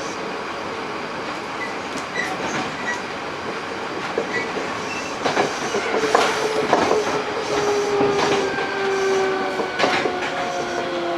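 Hankyu 8000 series electric train running, heard from inside the car: wheels rolling on the rails with clacks and knocks over the joints, and about halfway the whine of its Toshiba GTO-VVVF inverter sets in and slowly falls in pitch as the train slows.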